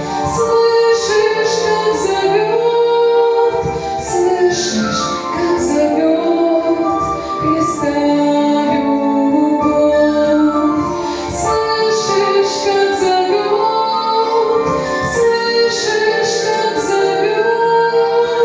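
A woman singing a Christian song with instrumental accompaniment.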